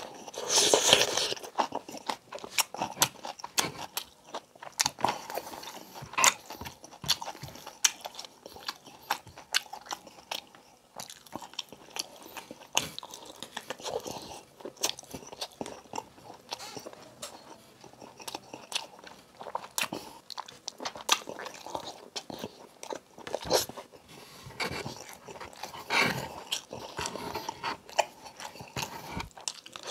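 Close-miked mukbang eating: a man biting, chewing and smacking on braised pork eaten by hand, with a string of wet clicks and lip smacks. The loudest bite comes about a second in.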